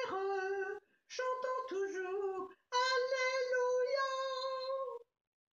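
Elderly woman singing unaccompanied in three phrases, the last a long held note that stops about five seconds in.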